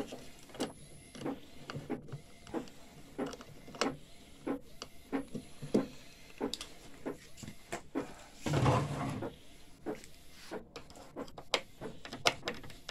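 Scattered clicks and knocks of a printer's black front panel and a screwdriver being handled as the panel is taken off, with a louder scraping rub a little past the middle.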